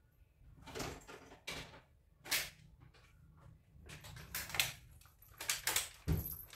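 Scattered rustles, clicks and knocks of household things being picked up and handled, including a sheet of paper, with a low thump about six seconds in.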